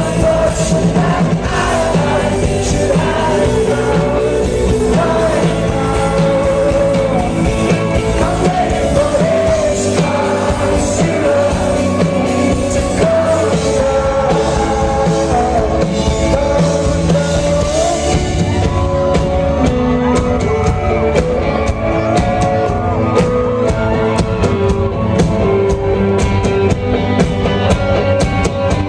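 Live rock band playing with a male lead singer, with guitars, bass and drum kit. About two-thirds of the way in the high end thins out and the drum hits stand out clearly.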